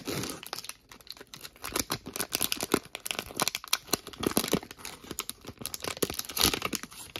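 Plastic wrapper of a 2022 Panini Prestige football card value pack being torn open and crinkled by hand: a dense run of crackles and snaps that stops near the end.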